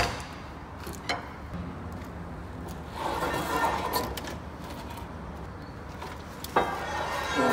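Metal parts being handled on a stripped milling machine bed: a sharp knock at the start, then clinking and scraping about three seconds in and again near the end, over a steady low hum.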